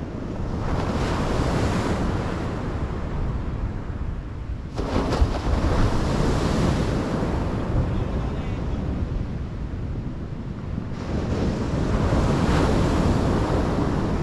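Sea surf breaking on a sandy beach in repeated surges, roughly every five to six seconds, with wind rumbling on the microphone.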